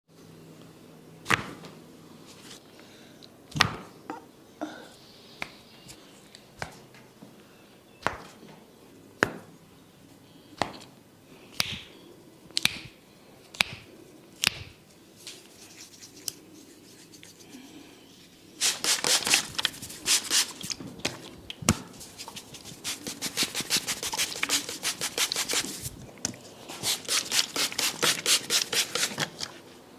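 Barber's head massage on hair and scalp: scattered sharp taps and cracks for a while, then a long, fast run of rubbing and tapping strokes, several a second, broken once by a short pause.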